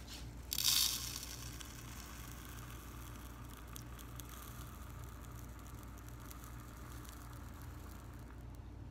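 Calcium chloride pellets poured from a jar into a beaker on a balance: a brief loud rush of pellets about half a second in, then a faint steady trickle.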